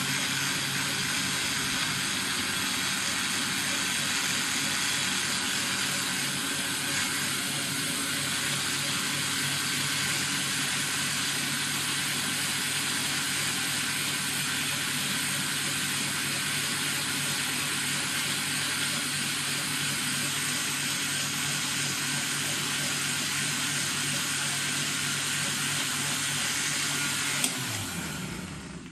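Electric countertop blender running steadily as it blends milk and pineapple. Near the end it is switched off with a click and the motor winds down, its hum falling in pitch.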